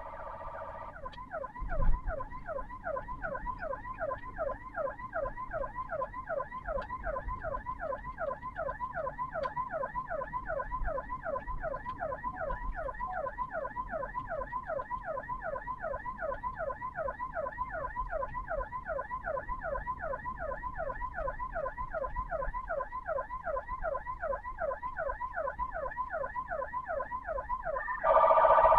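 Ambulance electronic siren in a fast yelp, its pitch sweeping rapidly about three times a second. A single thump sounds about two seconds in.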